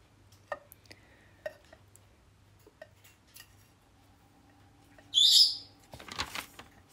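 A metal spoon stirring melting butters and oils in a pan, with a few light clinks. About five seconds in, a short, high-pitched warbling chirp is the loudest sound, followed by a brief scrape.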